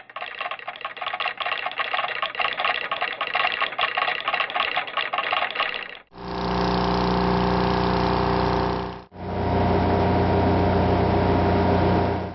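Machine sound effects: a fast, rapidly pulsing mechanical clatter for about six seconds, then two separate steady electric-motor-like hums of about three seconds each, split by short breaks.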